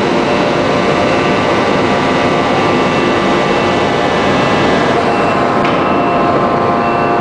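1250-ton open-die hydraulic forging press running: a loud, steady machinery drone with several steady whining tones over it and no distinct strokes or impacts.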